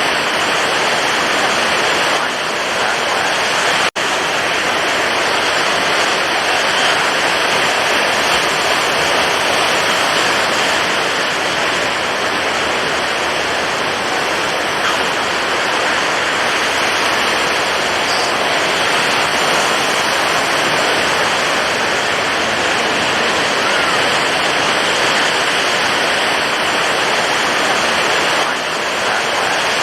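Rough, stormy ocean surf: a dense, continuous rush of breaking waves that holds a steady loudness, with a split-second drop-out about four seconds in.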